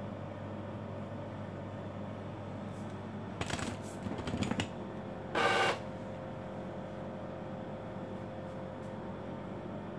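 A short electronic beep from the Epson L4160 printer's control panel, about five and a half seconds in, after a second or so of clicking and rattling. A steady low hum runs underneath.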